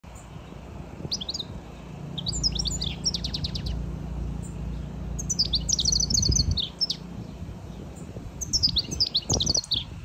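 European goldfinch singing in four bursts of quick, high twittering notes, with short pauses between them.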